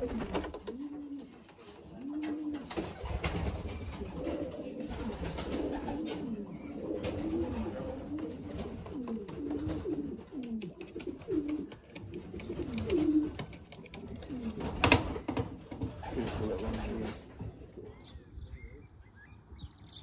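Racing pigeons cooing over and over, short low rising-and-falling coos, mixed with wing flaps and knocks on the wooden loft landing board, the loudest knock about fifteen seconds in; the cooing stops a couple of seconds before the end.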